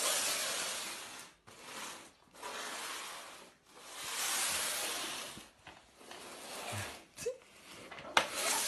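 Cardboard shoebox with a cat in it being slid back and forth across a laminate floor: repeated swishing scrapes, each a second or so long, then a couple of sharp knocks near the end.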